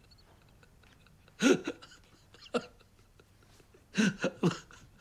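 An elderly man sobbing: a few short, choked sobs in broken bursts, one about a second and a half in, one near the middle, and a quicker cluster near the end, as he breaks down crying for his mother.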